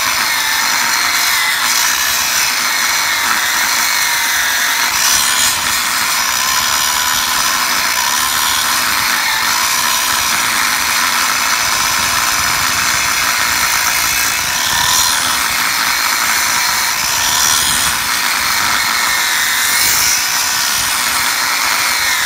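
Angle grinder cutting through a rusty steel H-beam: a loud steady grinding with a high whine that dips in pitch a few times as the disc bites harder under load.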